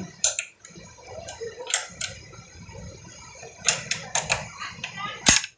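Socket ratchet wrench clicking in short bursts as the bolts on a motorcycle's front disc brake caliper are tightened down.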